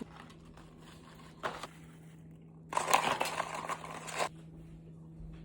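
Paper crinkling and rustling as French fries are packed into paper fry packets: a brief burst about one and a half seconds in, then a longer, louder stretch in the middle.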